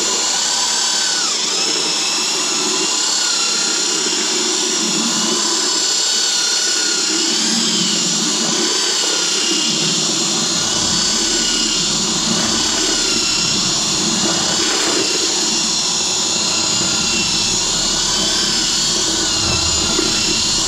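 Corded electric drill with a paddle mixer running steadily, crushing whole grapes into a pulpy mash in a plastic bucket. Its whine wavers slightly in pitch as the load shifts.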